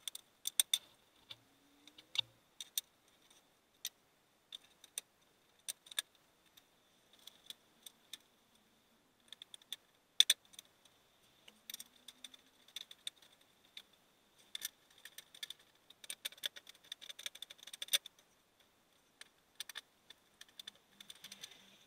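Scattered small clicks and light rattles of retainer clips being pushed into a 2019 Honda Civic's underbody panel and fastened by hand and with a small tool. The clicks are spaced irregularly, with a couple of sharper ones about ten seconds in and near the end.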